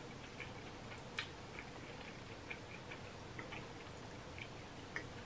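Close-miked eating: soft, irregular wet mouth clicks and smacks of someone chewing, with a sharper click about a second in and another near the end.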